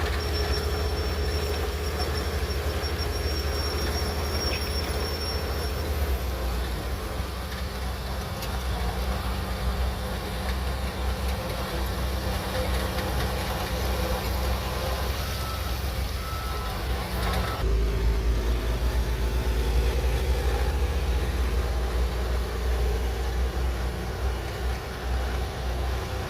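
Crawler bulldozer working: its diesel engine runs with a steady low rumble along with the machine's tracks. Some two-thirds of the way through the sound changes abruptly and the low rumble gets louder.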